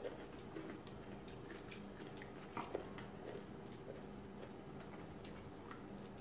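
Quiet eating sounds: forks clicking and scraping against a salad bowl and a plastic plate, and soft chewing of crunchy raw-vegetable salad, over a faint steady hum. A slightly sharper click comes a little under three seconds in.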